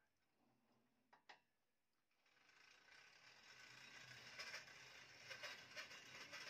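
Bandsaw mill head travelling along its track, a faint mechanical rattling and whirring with a low hum that starts about two seconds in, after two light clicks.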